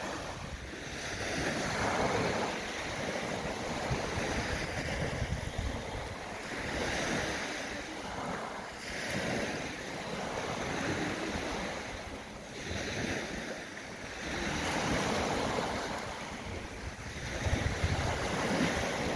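Small waves breaking and washing up a sandy beach, the surf swelling and fading every two to three seconds. Wind rumbles on the microphone, most near the end.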